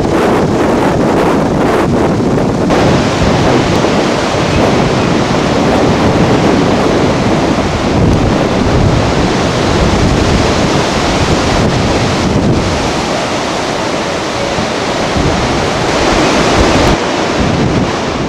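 Strong, gusty windstorm wind rushing through trees and buffeting the camcorder microphone, a loud continuous rushing noise with low rumbling gusts.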